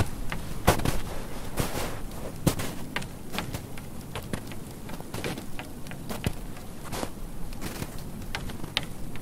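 Scattered sharp clicks and crackles, a few a second at uneven spacing, over a soft hiss.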